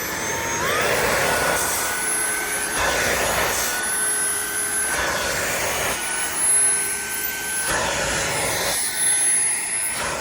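Dreo cordless stick vacuum running with its multi-purpose brush, a steady high motor whine over rushing air. The whine is still climbing to speed during the first second, and the air noise swells and dips as the nozzle works over sofa fabric.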